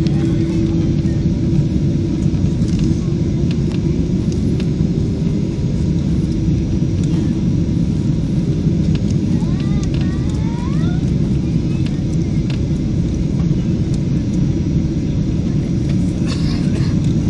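Boeing 767-300ER cabin noise on the descent: a steady low rumble of airflow and engines, with an engine hum that rises slightly in pitch and fades within the first few seconds.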